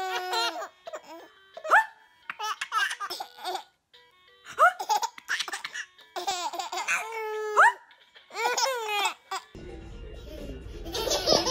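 Babies laughing: repeated high-pitched squeals and giggles in short bursts with brief pauses. Near the end this gives way to a noisier room with a steady background hiss.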